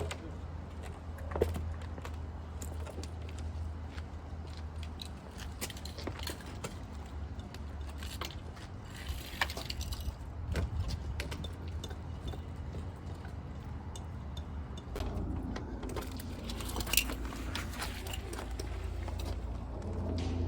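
Scattered light clicks and metallic clinks of tools and hardware being handled, over a steady low rumble.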